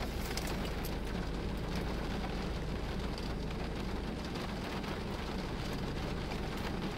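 Heavy rain pattering on a car's roof and windshield, heard from inside the cabin as a steady hiss of many small drops, with a low hum underneath that eases about four seconds in.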